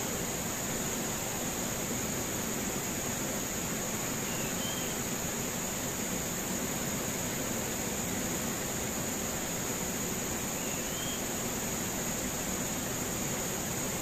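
Fast river rapids rushing steadily, with a continuous high-pitched drone of insects above it.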